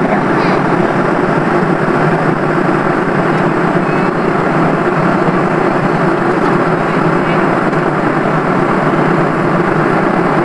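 Steady cabin noise of a jet airliner cruising at about 10 km altitude: an even, unbroken rush.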